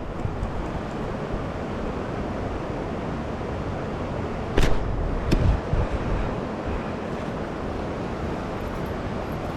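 Steady rushing of flowing creek water, with two brief knocks about halfway through.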